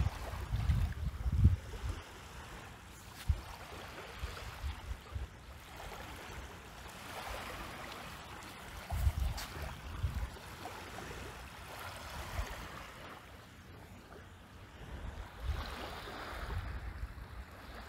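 Wind buffeting the microphone in uneven low gusts over a steady hiss of sea water lapping.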